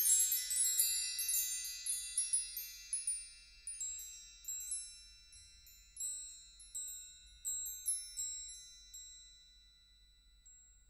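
Wind chimes tinkling: high metal notes that ring on and overlap, many at once at first, then thinning to single strikes a little under a second apart, fading out near the end.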